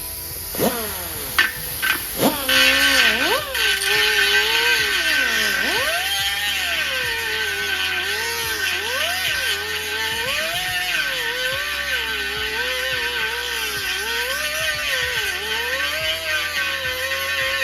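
Power grinder on sheet metal: a few short bursts of the tool starting up, then running steadily, its whine dipping and rising as it is pressed against the metal and eased off, likely grinding down welded-over holes in a motorcycle fender.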